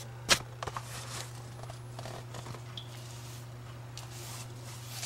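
Small paintbrush brushing over wet paint on a wall, soft intermittent swishing strokes as drips are smoothed out. A sharp click comes just after the start, over a steady low hum.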